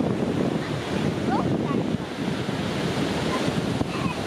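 Ocean surf washing onto the beach, a steady rushing with wind buffeting the microphone.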